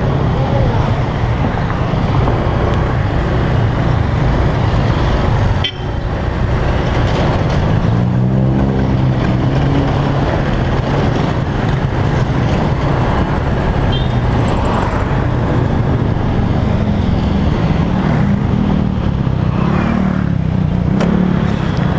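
Motorcycle engine running under way, with a steady rush of road and wind noise; the engine pitch rises about eight seconds in as it accelerates, and again near the end.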